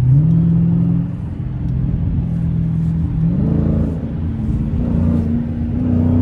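Dodge Scat Pack's 392 HEMI V8 running under light throttle while driving, a deep steady exhaust note whose pitch steps up twice as it picks up revs.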